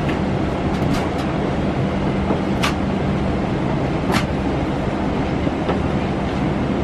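Steady rushing air and low hum of a Boeing 777-300ER's cabin, with a few sharp clicks about one, two and a half and four seconds in.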